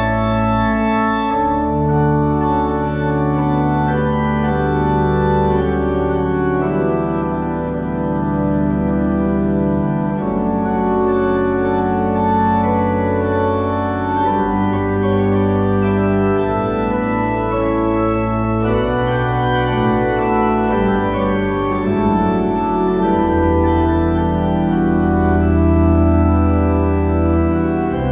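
Church organ playing held chords over a deep, sustained bass line, the harmony shifting every few seconds; a closing piece as the ministers leave at the end of Mass.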